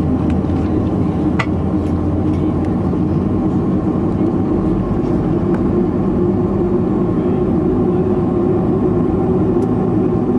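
Steady cabin noise of a Boeing 737-500 with its CFM56-3 turbofan engines running, a constant hum over a low rumble, heard from inside the passenger cabin. A faint click comes about a second and a half in.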